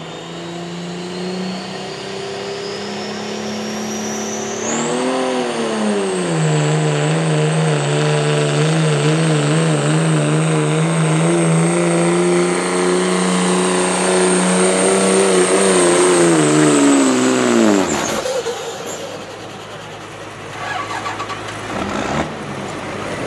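Work-stock turbocharged diesel pickup truck pulling the sled at full throttle. A high turbo whistle climbs over the first five seconds and then holds, over the engine's steady note under heavy load. About eighteen seconds in the engine lets off sharply and drops back to a low idle.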